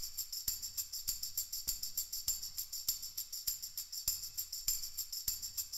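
Quiet background music with a fast, steady jingling percussion beat, like a tambourine.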